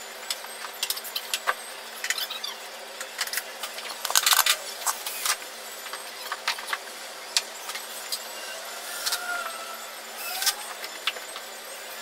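Irregular clicks, clinks and clattering of hard objects being handled, with a denser burst of knocks about four seconds in.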